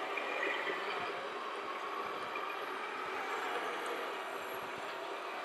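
Radio-controlled model construction machines working: a steady mechanical whirr from a model excavator and tip truck, over a continuous outdoor background hum.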